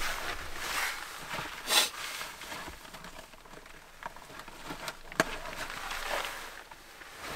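Rustling of a shell jacket and clothing and shuffling on an artificial-turf floor mat as a person shifts position and kneels, with a loud swish about two seconds in and a single sharp click a little past halfway.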